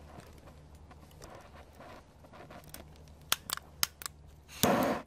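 A motherboard burning on a grill, crackling with a few sharp pops past the middle. Near the end a gas jet torch comes on with a loud rush of flame.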